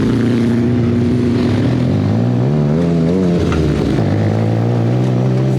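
Off-road buggy engine running at modest, steady revs, rising briefly about two and a half seconds in and settling back to a steady note about a second later.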